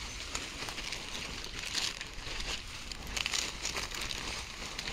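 Irregular crinkling and rustling as a bundle of freshly picked wild pak wan shoots and leaves is rolled up and stuffed into a bag, loudest about two seconds in and again past three seconds.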